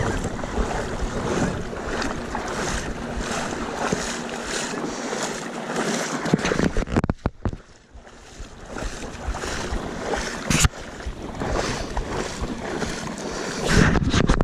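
Legs wading through shallow seawater, sloshing and splashing in a steady walking rhythm, with wind buffeting the microphone. The splashing eases briefly about halfway through, and a loud brush against the camera comes near the end.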